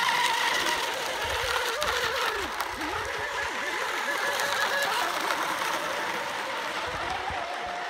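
Several battery-electric radio-control hydroplane race boats running flat out: a high motor whine that dips and rises in pitch about two to three seconds in as the boats round the turn.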